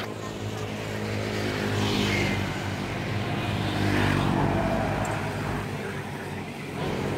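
Motor scooters passing close by on a road, each engine swelling and fading as it goes past, with the loudest passes about two and four seconds in, over a steady hum of engines.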